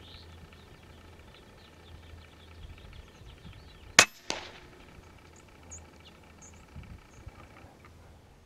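A single shot from a pre-charged pneumatic air rifle: one sharp crack, followed about a third of a second later by a fainter knock.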